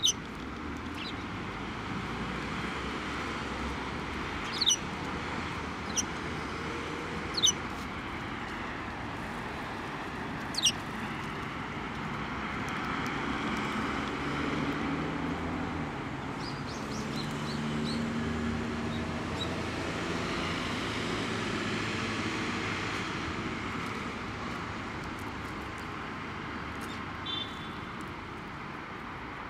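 Eurasian tree sparrows giving short, sharp, falling chirps, four loud ones spaced a few seconds apart in the first ten seconds and a few fainter ones later. Under them runs steady distant traffic noise that swells in the middle.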